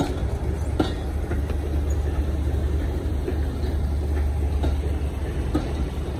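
BR Mark 1 passenger coaches rolling past close by: a steady low rumble from the wheels and bogies, with the wheels clicking over rail joints now and then.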